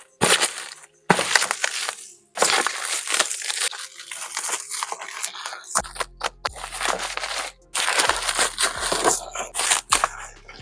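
Loud crackling and rustling of packaging being handled, in repeated bursts, over background music whose steady beat comes in about halfway.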